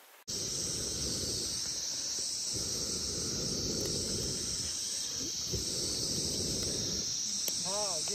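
Steady high-pitched chirring of insects in the grass, starting abruptly a moment in, over a low rumbling noise. Near the end a short wavering pitched call begins.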